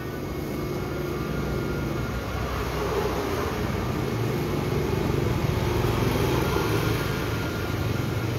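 Steady low motor hum with an even rushing, air-like noise, holding level throughout.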